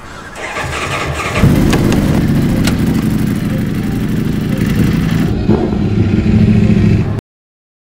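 Sport motorcycle engine starting about a second and a half in and running loudly, then cut off abruptly near the end.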